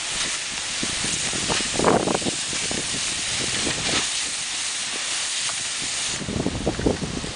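Fire hose spraying water onto smouldering embers, a steady hiss of spray and steam. The hiss drops away about six seconds in, with scattered crackles underneath.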